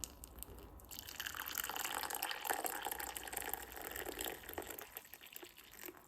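Water pouring into a cup or container. It starts about a second in and runs for about five seconds before stopping.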